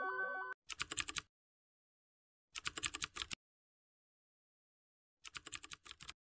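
Computer-keyboard typing sound effect: three short bursts of rapid key clicks, each under a second, separated by silence. At the very start, the last held notes of electronic music fade out.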